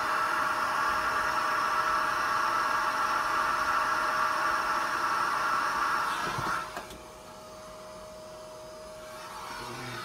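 Eureka Mighty Mite canister vacuum running, a steady whine and rush of suction. About two-thirds of the way in the rush drops suddenly to a quieter hum, then swells again near the end.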